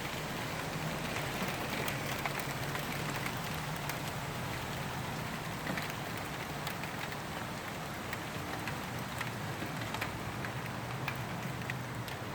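Rain falling: a steady hiss with many scattered drop ticks, over a steady low hum.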